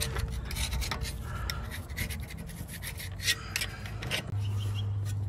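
A hand tool scraping and rubbing in quick, irregular strokes on the corroded hub face of a Mercedes W124's rear brake rotor. A steady low hum sets in about four seconds in.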